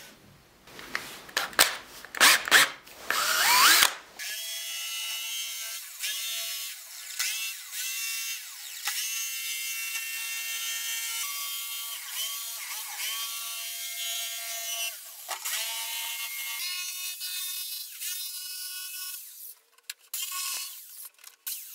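Corded jigsaw cutting a curved line through thin hardboard: a steady motor whine whose pitch dips and recovers as the blade loads up, stopping near the end. Before the cut starts there are a few seconds of clattering knocks.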